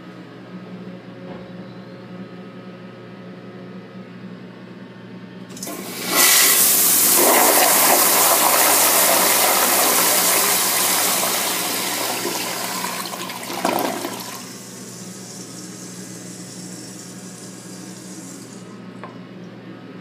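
Crane Hymont toilet flushing on a flushometer valve. A loud rush of water starts about six seconds in, tapers off and cuts off sharply about eight seconds later, followed by a fainter hiss for a few more seconds.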